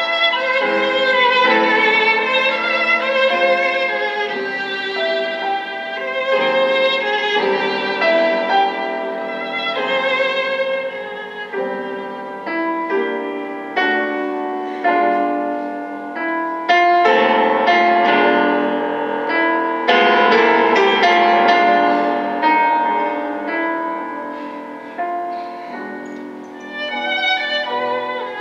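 Classical violin music with accompaniment, played back from a CD through a single-ended valve amplifier with Cunningham CX-345 (type 245) output triodes and small speakers, with very little bass.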